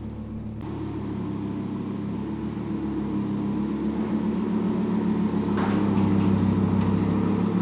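Audi R8's V10 engine running at low revs through its titanium exhaust, a steady low note that grows steadily louder.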